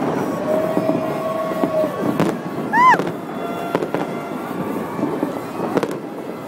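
Aerial fireworks display: sharp bangs and crackling over a constant din. A held tone sounds early on, and a short pitched sound that rises and falls is the loudest moment, about halfway through.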